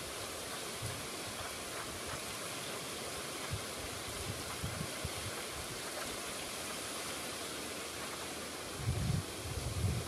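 River water rushing over shallow rapids, a steady hiss. Near the end a few low rumbles of wind hit the microphone.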